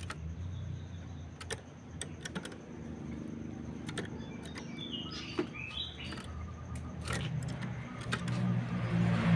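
Scattered light clicks and taps over a low hum, with a few short bird chirps about five to six seconds in.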